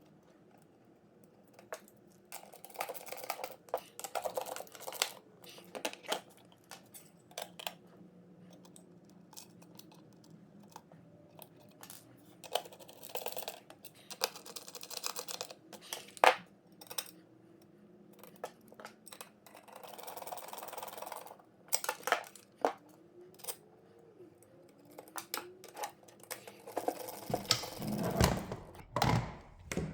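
Clicks, taps and scraping of parts handled by hand as the bushings on an automatic dust-collection blast gate are unbolted and swapped, with scattered sharp knocks throughout.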